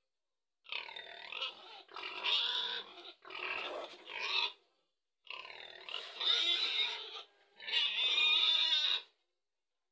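Domestic pig calling in a series of about six loud, rough calls of a second or so each, separated by short pauses.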